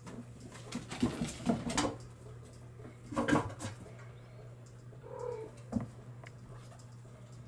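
Young Bengal kittens play-fighting: scuffling with a few short mews and squeaks, loudest a little over three seconds in, and a brief mew about five seconds in.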